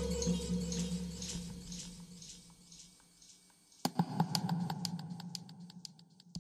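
Sustained electric guitar notes from an instrumental track dying away. About four seconds in comes a sharp click, then an even run of quick clicks, about five a second, over a low held tone, fading toward the end.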